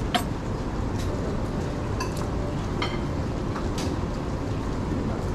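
Steady low din of a buffet dining room, with a few light metallic clinks of serving tongs against plates and boards.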